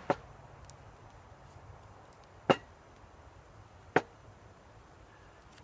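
Three sharp knocks of metal food cans being set down on a wooden plank table: one right at the start, another about two and a half seconds later, and a third a second and a half after that.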